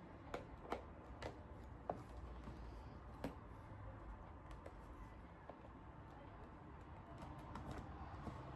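Small, sharp clicks and taps of a MacBook's case and parts being handled while it is worked on. They are irregular, with several clear ones in the first three seconds and then only faint ones.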